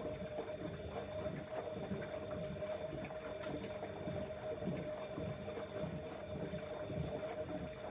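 Bosch Exxcel 1400 front-loading washing machine running a wash: a steady whine with water sloshing irregularly in the turning drum.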